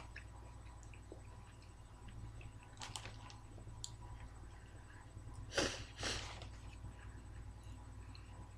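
Quiet chewing and mouth sounds of a man eating a lamb yiros, picking bits of filling out with his fingers, with a few faint clicks and two short noisy bursts a little past the middle.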